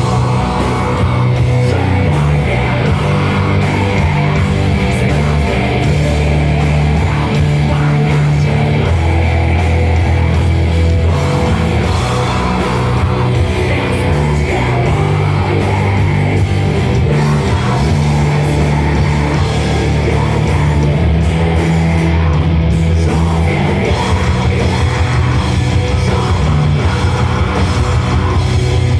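A rock band playing live, heavy guitar over sustained low bass notes that change every few seconds, loud and continuous.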